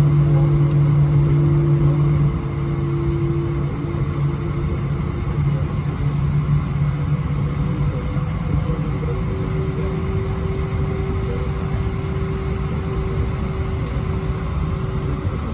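Cabin noise inside an Airbus A320-231 with its IAE V2500 engines running: a steady rumble under a low hum that drops slightly in level about two seconds in, with a higher tone shifting in pitch later on.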